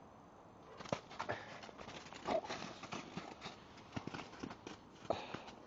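Footsteps crunching through snow in an uneven walking rhythm, starting about a second in and stopping shortly before the end.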